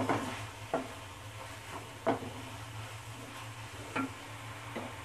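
Wooden spatula stirring chicken pieces in a nonstick frying pan, scraping and knocking against the pan about five times, over a light sizzle of frying spiced chicken.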